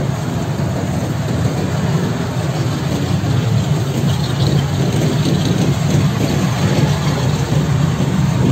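Steady low rumble of city street noise.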